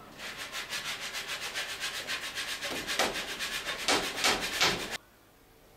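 Fast, even rasping of something being worked against wood, about eight strokes a second, louder in the last couple of seconds and stopping abruptly near the end.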